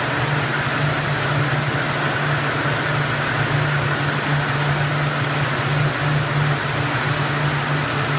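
Rows of yarn doubling machines running together on a mill floor: a steady hum with an even hiss over it, unchanging throughout.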